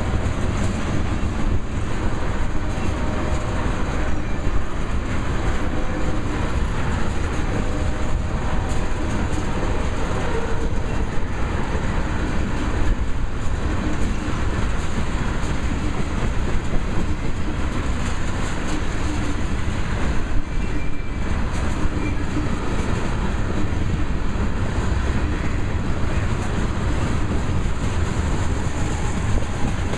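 Loaded railroad tank cars of a freight train rolling past, their steel wheels rumbling steadily on the rails with irregular clicking and clacking.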